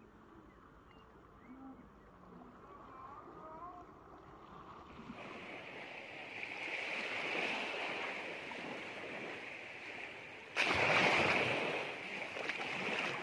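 Sea waves washing onto a beach, faint for the first few seconds and then a steady wash, with a sudden louder rush of water about ten and a half seconds in.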